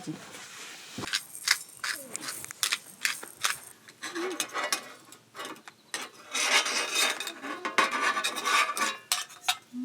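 Irregular scraping and small clicks of eating utensils against a dish, coming and going, with the longest stretch of scraping near the end.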